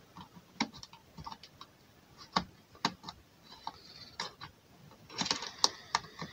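Irregular small clicks and scrapes of an iFixit driver's tip working under a 2032 coin cell in its motherboard holder, twisting to pry the CMOS battery loose. There is a denser run of scratchy clicks about five seconds in.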